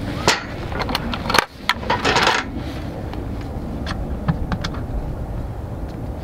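Clicks and knocks of a portable power station being set down on a metal camp table and handled, its metal carry handles clinking, with a short scraping rustle about two seconds in and lighter scattered ticks after.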